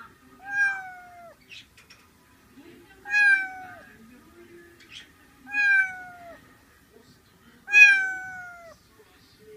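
Young black-and-white kitten meowing four times, about two and a half seconds apart. Each meow is high-pitched and slides down at the end.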